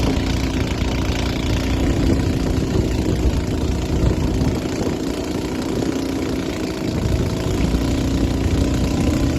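Boat engine running steadily, a constant hum.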